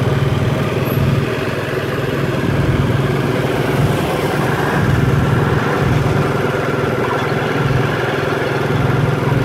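Motorbike engine running steadily at low road speed, with wind and road noise on the microphone.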